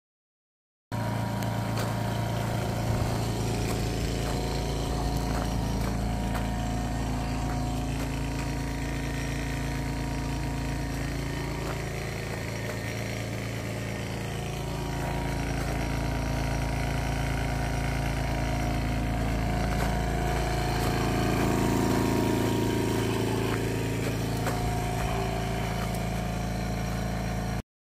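A machine's motor running steadily with a low, even hum, with a few faint knocks over it.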